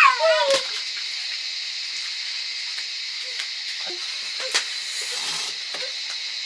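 A dog whimpers briefly with falling cries at the start, then a freshly lit wood fire burns with a steady high hiss and a few sharp crackles.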